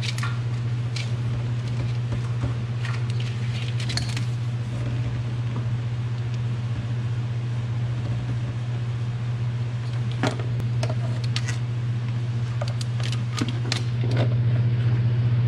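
A steady low hum runs throughout, with scattered light clicks and clatter as hands work on parts in a truck's engine bay. The clicks come thickest about two-thirds of the way in.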